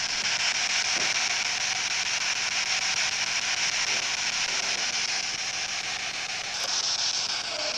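Steady static hiss with nothing else standing out.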